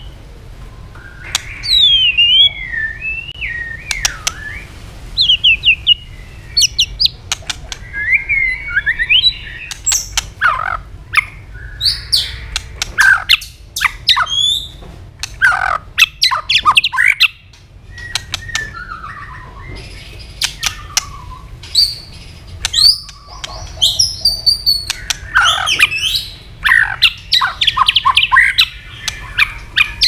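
White-rumped shama singing a loud, varied song of gliding whistles and quick trilled phrases, broken by many sharp clicking calls, with dense bursts near the middle and the end.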